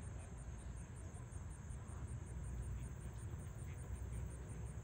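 Insects chirping: a steady, evenly pulsed high-pitched trill, over a constant low rumble.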